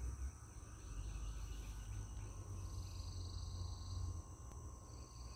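Insects trilling steadily in the background, in several unbroken high tones, with a brighter high trill that swells twice and fades. A steady low rumble on the microphone runs underneath and is the loudest part.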